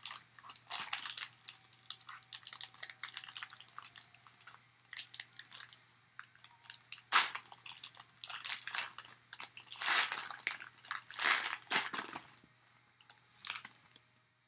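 Foil trading card pack wrapper crinkling and tearing as it is opened by hand: an irregular run of crackly rustles, with the loudest crackles about seven seconds in and again around ten and eleven seconds in.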